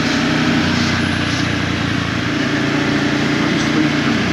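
Ducati motorcycle engine running steadily as the bike is ridden along at road speed.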